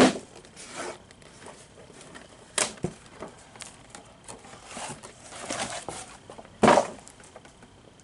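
Cardboard packaging being handled: a cardboard sheet and a boxed action figure are slid and lifted out of a shipping box, with short scrapes and rustles. A sharp knock comes at the start and another about seven seconds in.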